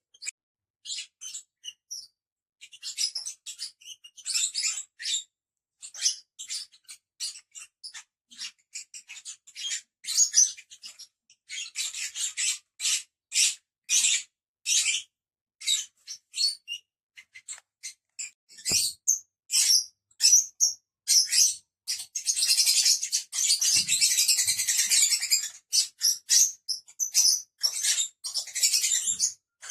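Lovebirds chirping: a run of short, sharp, high-pitched calls from several birds. About two-thirds of the way through they run together into a few seconds of continuous chattering.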